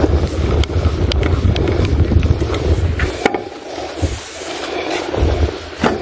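Wind buffeting the microphone in gusts, strongest in the first half, with a few sharp knocks from handling.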